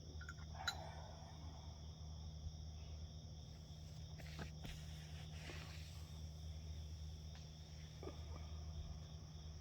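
Crickets chirping steadily over a constant low hum, with a sharp click less than a second in and a few faint rustles and clicks later on.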